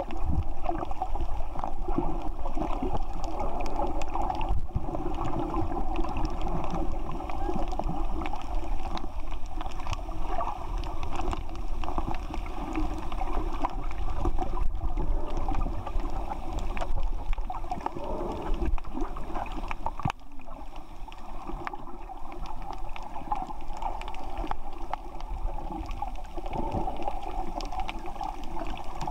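Muffled underwater water noise picked up by a submerged camera over a coral reef: a steady wash with a low rumble and many small faint clicks.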